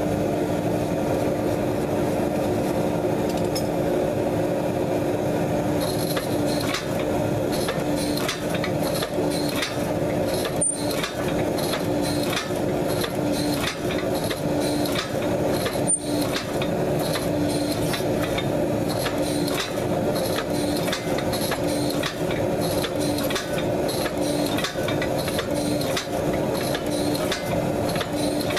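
Forging press's power unit running steadily with a held hum while a hot damascus billet is pressed. About six seconds in, a regular ticking starts, roughly two a second.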